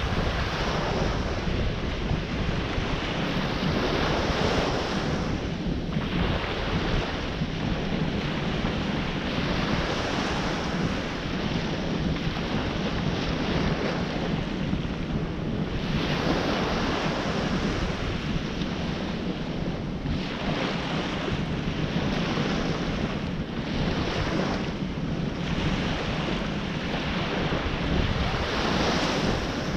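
Ocean surf breaking on the shore: a continuous rushing wash that swells and eases every few seconds, with wind buffeting the microphone as a steady low rumble.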